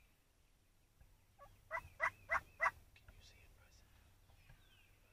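Wild turkey tom gobbling once: a rapid rattling call of several pulses, about a second long, starting about a second and a half in. Faint chirps can be heard before and after it.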